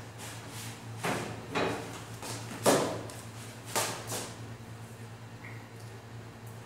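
Kitchen handling noises: about five short scrapes and clatters of cookware and utensils in the first four seconds, the loudest about two and a half seconds in, then quieter. A steady low hum runs underneath.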